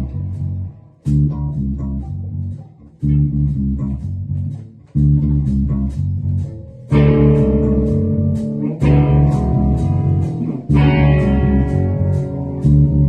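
Band playing an instrumental intro: guitar and bass guitar strike sustained chords about every two seconds, with light cymbal ticks keeping time. About seven seconds in, the sound grows fuller and brighter.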